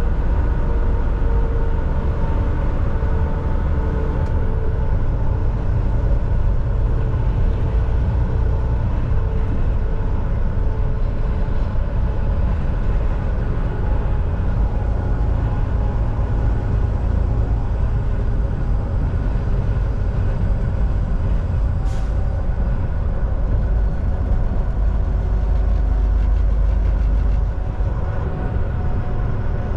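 Semi truck cruising on the highway: a steady low drone of the diesel engine and road rumble. There is one sharp click about 22 seconds in, and the rumble eases slightly near the end.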